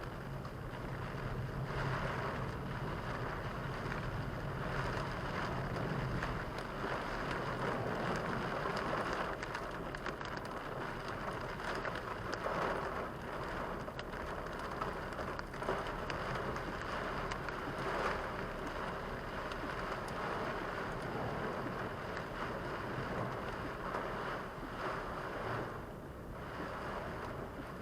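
Heavy rain on a moving car, heard from inside the cabin: a steady wash of rain and wet-road tyre noise over a low road hum.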